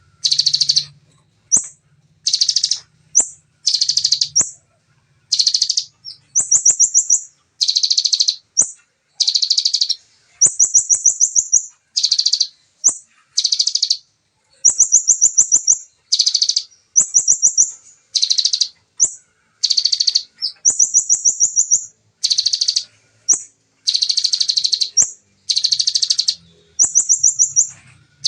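Bar-winged prinia (ciblek) singing its rapid-fire 'tembakan' song: short, loud, high-pitched bursts with only brief gaps between them, some of them fast buzzing trills. A faint low hum sits under the song near the start and again near the end.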